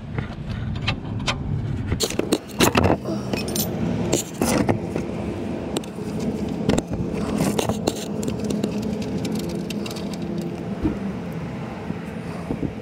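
Metal wrench clinking and clicking on the oil pan drain plug of a Toyota forklift as the 14 mm plug is broken loose and unscrewed for an oil change. The clinks come in clusters, thickest a couple of seconds in and again about halfway through.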